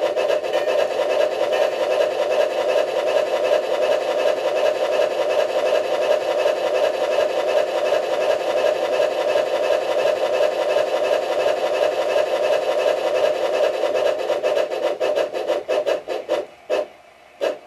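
Bachmann 1:20.3 two-truck Climax model locomotive running on track rollers under DC power: its motor and metal gear drive make a fast, steady clatter. Near the end it slows to a few separate clicks and stops.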